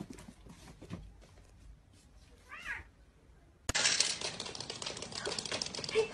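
A cat gives one short meow about halfway through, over faint taps. A little later a louder run of clattering and rattling starts: a clear plastic press-down pet food dispenser being worked by hand, kibble rattling into its plastic bowl.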